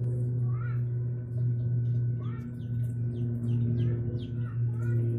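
Small birds chirping in short rising and falling calls every second or so, over a loud steady low hum.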